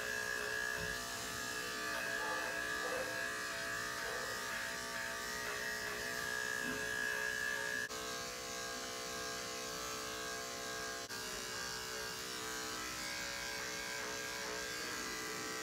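Corded electric dog-grooming clippers with a #7 blade buzzing steadily as they shave through a wet, heavily matted coat. The tone of the hum shifts slightly about halfway through.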